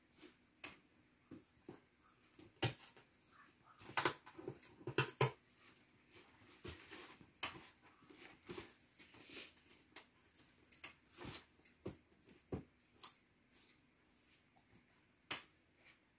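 Puppy rummaging with its nose in a cardboard box holding plastic bags: faint, irregular rustling, crinkling and light taps.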